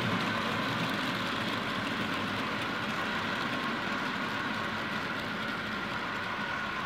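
Model freight train rolling past on layout track: a steady running noise from the wagons' wheels on the rails, easing off slightly toward the end as the tail of the train goes by.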